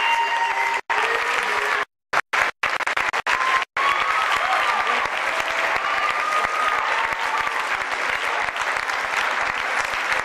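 Audience applauding, with a few voices calling out over the clapping. The recording cuts out briefly several times in the first four seconds.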